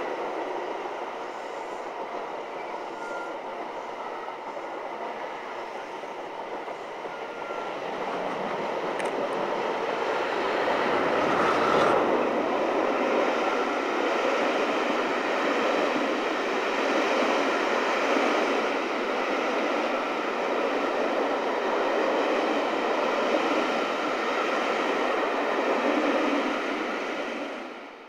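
A locomotive-hauled rake of passenger coaches and a High Speed Train passing each other on a double-track main line, with a steady rush of wheels on rail. It builds to its loudest about twelve seconds in, holds, and fades near the end.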